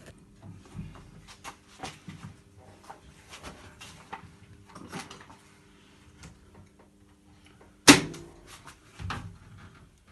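Small clicks and knocks from hands working inside an electrical control panel, over a low steady hum. About eight seconds in, the hum stops with one loud, sharp clack.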